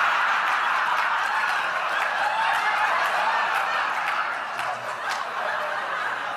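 A large audience laughing, breaking out all at once and slowly dying down.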